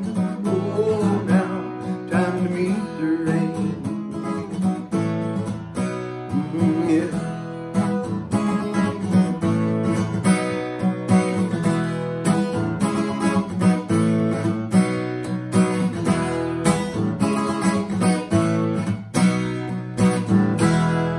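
Instrumental music led by strummed acoustic guitar, with regular strokes over sustained chords and no singing.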